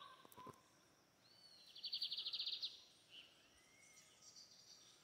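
Birdsong: a bird gives a rapid high trill lasting about a second, with a few faint chirps before and after.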